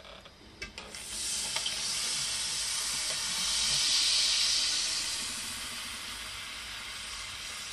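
Foley bubbles fizzing in a metal plate: a few small clicks, then about a second in a dense crackling fizz comes in, swells to its loudest around four seconds and settles into a steady fizz, with a faint metallic undertone.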